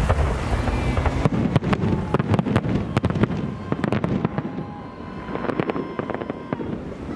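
Fireworks salute bursting overhead: a rapid run of sharp cracks and pops that starts about a second in and thins out near the end.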